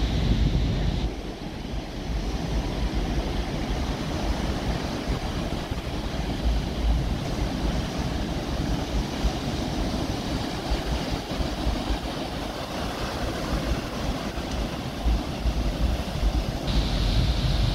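Ocean surf breaking and washing up a sandy beach in a steady rush, with wind buffeting the microphone in a gusty low rumble.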